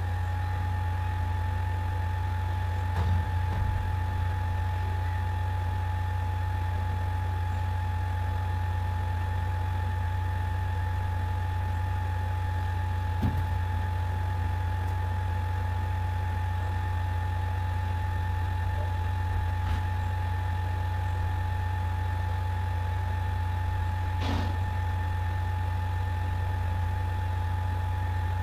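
Steady low machine hum with a thin steady whine above it, broken only by a few faint clicks.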